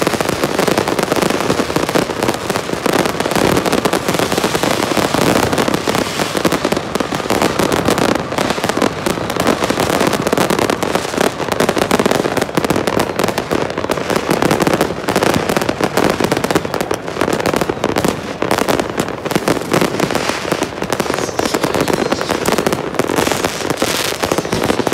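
Fireworks and firecrackers going off in a dense, continuous barrage of crackles and bangs, many overlapping, with no let-up.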